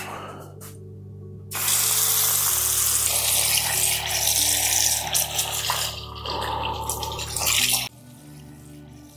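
Bathroom sink tap running, with water splashing as a face is washed in cupped hands, over soft background music. The water comes in about a second and a half in and cuts off suddenly near the end.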